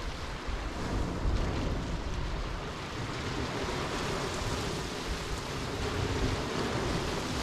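Small waves washing onto a pebble shore and splashing against rocks, with wind buffeting the microphone as a low rumble.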